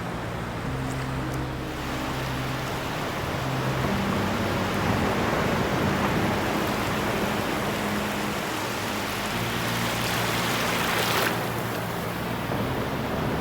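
Ocean surf breaking and washing up a beach: a steady rushing noise that swells about four seconds in, surges again about eleven seconds in, and then falls away sharply.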